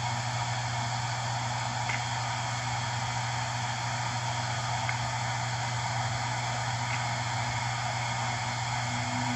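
Western Digital Caviar SE WD800JB 7200 RPM hard drive running at full speed: the spindle motor and two platters make a steady hum with a few faint ticks.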